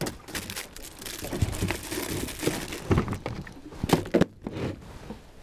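Food packets and an ice pack being shuffled in a small plastic cool box: wrappers crinkle and plastic knocks lightly, with a sharper knock about four seconds in.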